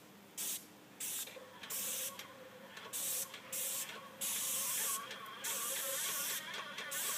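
Hiss of a paint spray gun spraying house siding, triggered on and off in short bursts at first and then in longer passes from about four seconds in.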